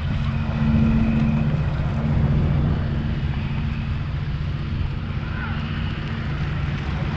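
Motorboat engines running in a steady low drone, with wind on the microphone.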